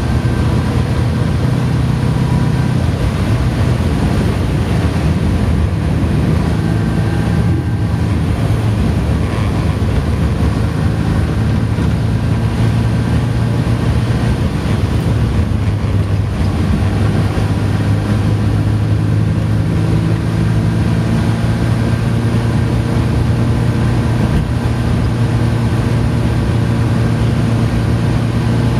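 Morris Minor's Marina 1300 four-cylinder engine (BMC A-series 1275 cc) running steadily under way, heard from inside the cabin. The revs shift slightly a few times, with road and wind noise underneath.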